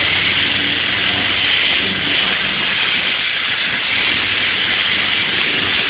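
Sunflower thresher running steadily as sunflower heads are pressed into it and the seeds are stripped off, a constant hissing rattle with no let-up.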